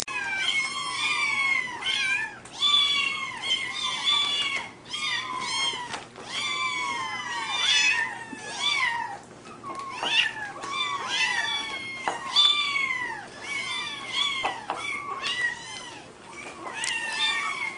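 A litter of young kittens mewing nonstop, many high-pitched calls overlapping one after another.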